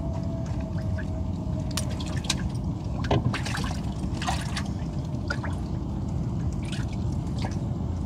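Water dripping and splashing off a gill net as it is hauled in by hand, with scattered short clicks and splashes over a steady low rumble.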